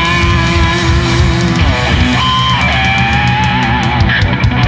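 Live rock band playing a bluesy instrumental passage: electric guitars over drums, bass and keyboards, with held lead notes that glide and waver in pitch.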